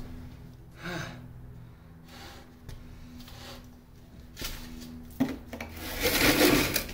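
Intermittent scraping and rubbing: short bursts about a second in and after four seconds, then a longer, louder stretch near the end, over a steady low hum.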